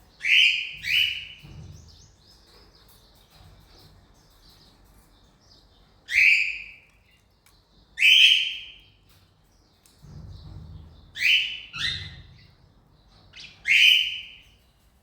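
Cockatiels calling: about seven loud, short calls that sweep down in pitch, in pairs and singles, with soft chirping chatter between them.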